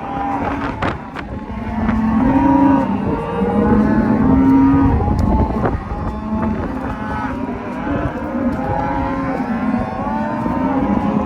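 A herd of cattle bawling, many cows and calves mooing over one another throughout, deep calls and higher ones overlapping: cows calling for their calves after the herd has stretched out. Wind rumbles on the microphone underneath.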